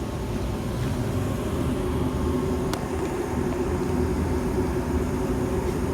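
2020 Evcon 65,000 BTU low-NOx gas furnace running with burners lit and blower fan on, a steady hum with a low rumble. A faint click about three seconds in.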